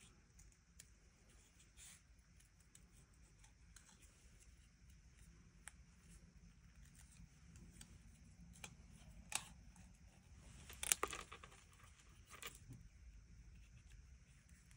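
Stampin' Up paper snips fussy-cutting a small piece of cardstock: faint, scattered small snips, with a couple of louder cuts about nine and eleven seconds in.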